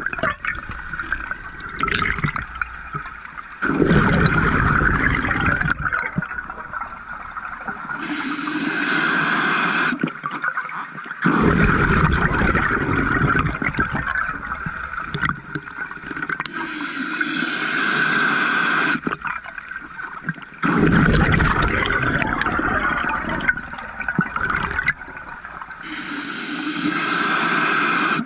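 Scuba diver breathing underwater through a regulator: a steady hissing inhale, then a gush of exhaled bubbles lasting two to three seconds, repeating about every eight to nine seconds, three full breaths.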